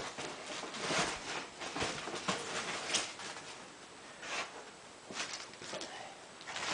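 Assembly-kit parts and packaging being handled: a steady run of rustles and light knocks, with a few sharper clacks about one, three and four and a half seconds in.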